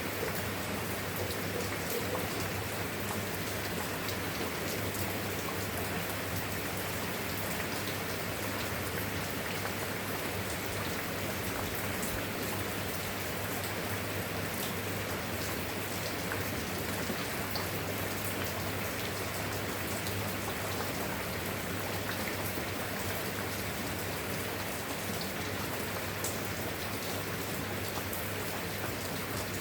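Steady rain falling: an even, unbroken hiss with scattered individual drop ticks.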